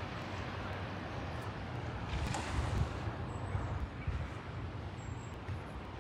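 Wind buffeting a phone microphone: a steady rushing hiss with irregular low rumbling gusts.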